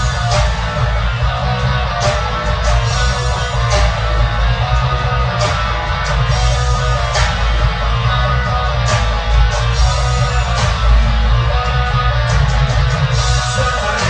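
Amateur garage-rock cover band playing loud, distorted electric guitar over bass and drums with cymbal hits, on a rough home-made recording.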